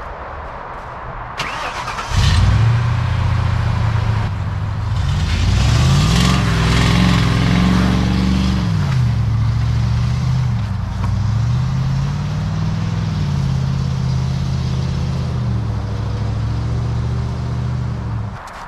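Ford Econoline van's engine cranking and catching about two seconds in, then running as the van pulls away through snow. The engine pitch rises and falls twice as it is revved, and the sound cuts off near the end.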